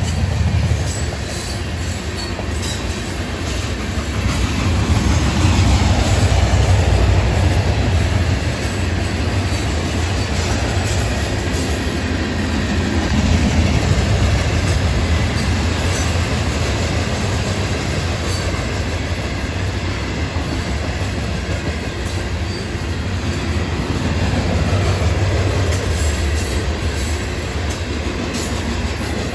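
Florida East Coast Railway freight cars rolling past: a steady low rumble of steel wheels on rail that swells and eases, with clicks over the rail joints and faint high wheel squeal.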